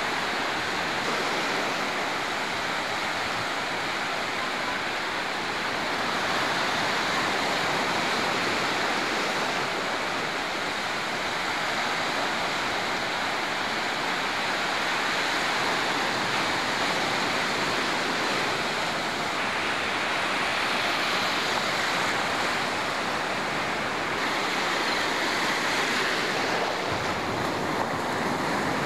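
Sea surf breaking and washing on the shore: a steady rush of water that swells slightly now and then.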